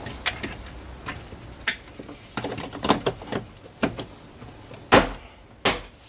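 Plastic interior trim pieces on a 2016 Toyota Camry's rear door panel being pushed and snapped into place by hand: a string of irregular plastic clicks and knocks, the loudest about five seconds in.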